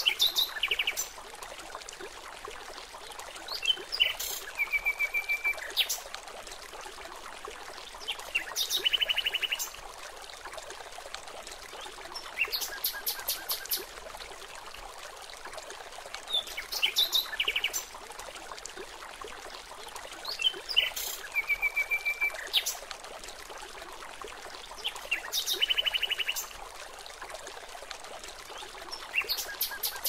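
Songbirds singing short trilled and rapidly repeated phrases every few seconds over a steady background hiss. The same sequence of calls comes round again about every 16 seconds, as in a looped nature recording.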